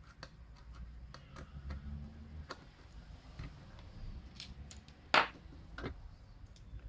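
Small plastic clicks and ticks from a screwdriver and fingers working the plastic casing of a mini radio-speaker, with handling rumble underneath. About five seconds in comes one louder, sharp plastic snap as the top of the casing comes loose, followed by another click.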